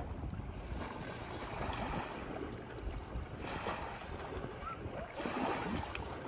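Small lake waves washing against the rocky shore and concrete boat ramp, a soft rushing hiss that swells twice in the second half, over a low wind rumble on the microphone.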